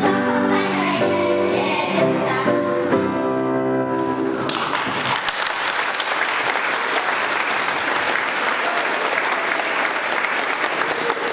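A sung song with instrumental accompaniment ends on held notes about four seconds in, and an audience breaks into applause that carries on.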